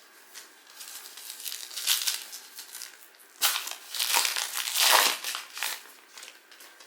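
Plastic foil wrapper of a Donruss Optic trading card pack being torn open and crinkled by hand, in irregular crackly rustles that are loudest from about three and a half to six seconds in.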